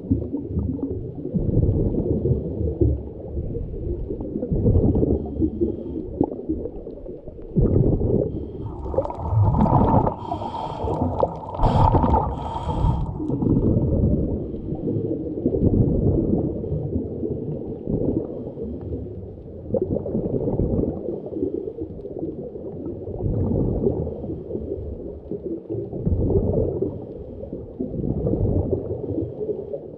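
Muffled underwater noise picked up by a submerged camera: water moving and gurgling, with a brighter, hissier stretch from about 9 to 13 seconds in.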